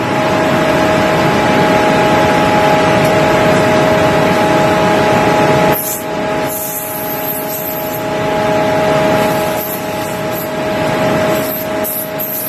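A machine running steadily, a constant whine over a dense mechanical noise; the noise shifts briefly about six seconds in while the whine holds.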